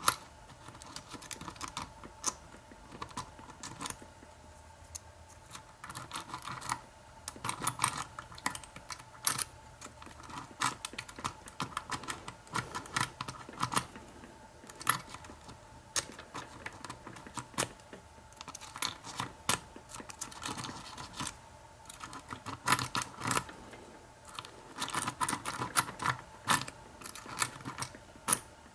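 Small metal rake pick scraping and clicking against the pins inside a lock as it is raked in and out, with a tension tool held in the keyway: irregular ticks and rapid rattling runs of clicks.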